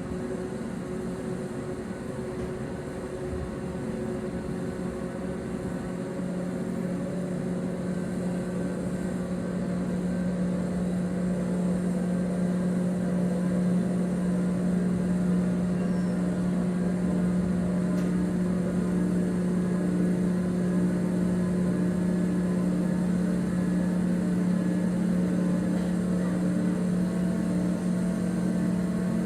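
A boat engine's steady drone with a low hum, growing louder over the first ten seconds or so and then holding level.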